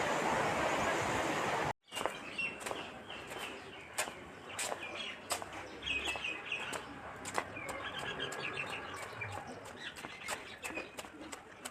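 A steady rushing noise that cuts off abruptly a little under two seconds in, then small birds chirping over and over in short high calls, with scattered sharp clicks.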